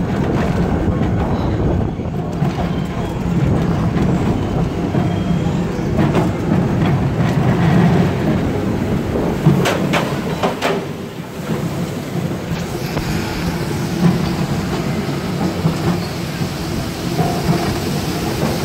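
Pteranodon Flyers suspended ride car running along its overhead steel track, a steady low rumble with a few sharp clacks about ten seconds in.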